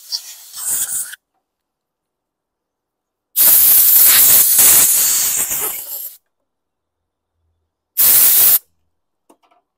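Compressed-air blow gun hissing as it blows out a mower carburetor's slimy, partly blocked jets and bowl cartridge: a few short puffs, a long blast of about three seconds, then a short blast of about half a second.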